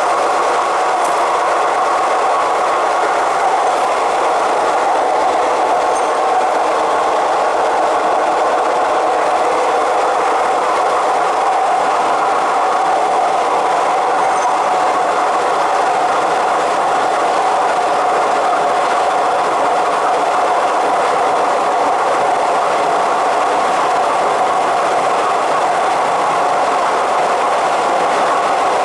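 Suburban commuter train running steadily at speed on an elevated line: a continuous, even noise of wheels on rail.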